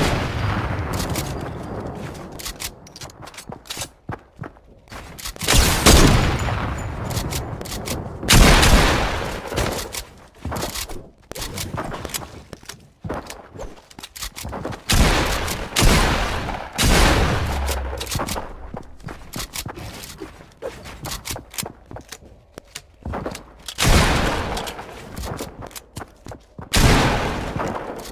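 A series of loud, sudden bangs at uneven intervals, about nine in all, each fading away over a second or two, with shorter sharp cracks in between.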